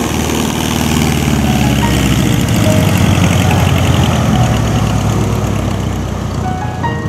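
Light floatplane's piston engine and propeller running at high power as the plane skims across the water on its floats, growing louder as it passes about halfway through and easing off toward the end.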